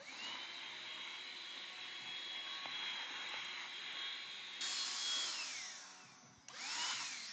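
Small handheld vacuum cleaner switched on: its motor whine rises quickly to a steady high pitch over a hiss, then winds down about five seconds in. It is run again briefly near the end. It is picking up broken screen glass from the workbench.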